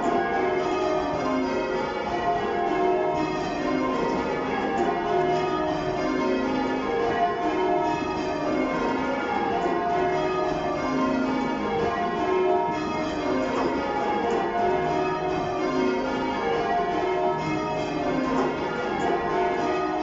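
Change ringing on a ring of church bells cast in 2017, swung full circle by ringers pulling ropes, heard from the ringing chamber below the bells. The strikes come in a steady, even stream of overlapping tones.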